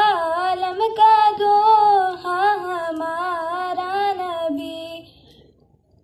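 A boy sings a naat solo, without instruments: one melodic phrase with gliding, held notes that ends about five seconds in, followed by a pause for breath.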